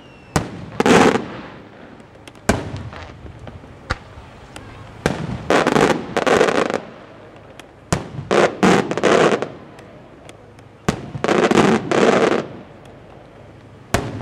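Aerial firework shells from a St. Mary Fireworks display bursting overhead: a series of loud bangs, some single sharp reports and others coming in quick clusters of two or three, each with a short echoing rumble.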